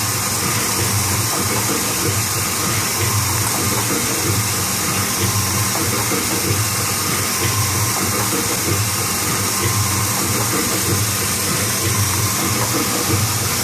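A 1998 Kluge EHD 14 x 22 foil stamping and die-cutting press running: a steady mechanical hiss and whir with a low hum that pulses about once a second.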